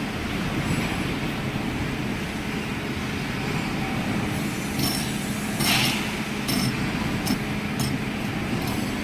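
Metal lathe running with a steady hum, with sharp metallic clinks about once a second and a louder rasping burst about six seconds in.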